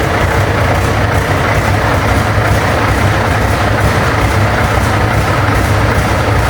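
Scania 143's V8 diesel engine running steadily, a deep even drone with no revving.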